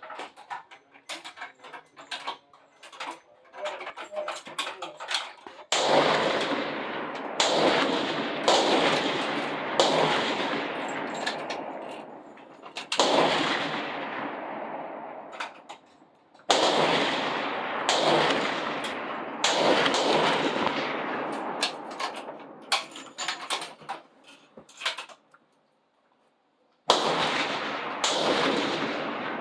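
Benchrest rifles firing along a covered firing line: around ten shots at irregular intervals, overlapping from several benches, each with a long echoing decay under the roof. The first few seconds hold only small clicks and knocks before the shooting starts.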